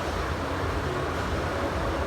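Steady low rumble and hiss of a bus in motion, heard from inside.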